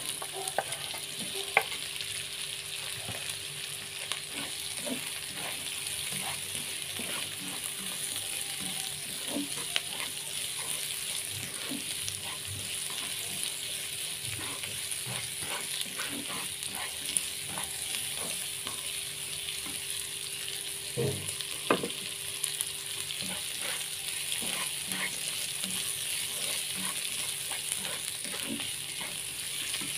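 Stir-frying in a nonstick wok: sliced baby corn, chilies and tomato sizzle steadily in hot oil. A plastic spatula scrapes and taps the pan now and then, with a louder clatter a little past the middle.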